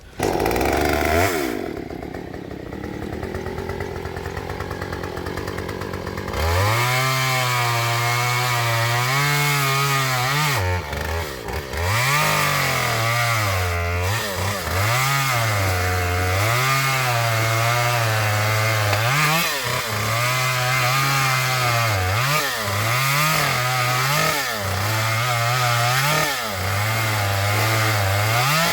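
Gas chainsaw's two-stroke engine running at low speed for about six seconds, then held at high throttle and cutting through a fallen tree. Its pitch repeatedly dips and recovers as the chain loads up in the wood.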